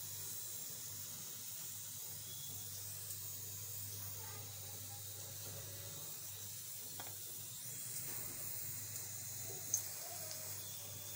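Spice seeds sizzling gently in hot oil in a stainless-steel pot: a steady fine hiss over a low hum, with one sharp click near the end.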